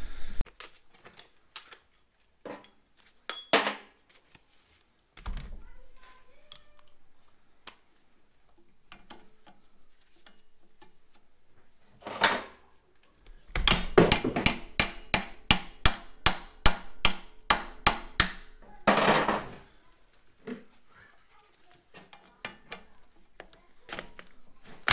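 Cordless impact wrench on a long extension hammering at rusted exhaust manifold bolts: a loud run of sharp strokes at about four to five a second for several seconds past the middle, with a short burst just before and after. Scattered clicks and knocks of the socket and tools come before it.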